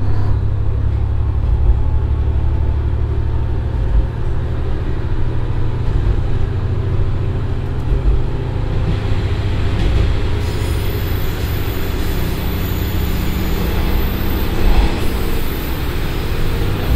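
Cabin sound of a JR Shikoku 1500 series diesel railcar accelerating: its Komatsu SA6D140HE-2 common-rail diesel engine pulls under power with a steady low rumble, over the noise of the wheels on the rails.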